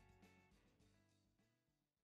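Faint background music with a steady beat, fading out.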